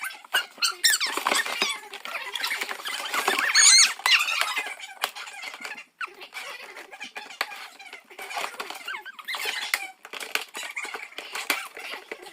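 Plastic and cardboard packaging squeaking and rustling, with many small clicks, as toy pieces are pulled out of the box.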